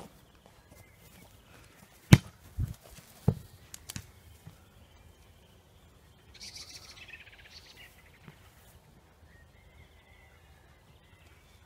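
Cavalier King Charles Spaniel puppies at play: a few sharp knocks about two to four seconds in, then a brief high-pitched squeak about six seconds in.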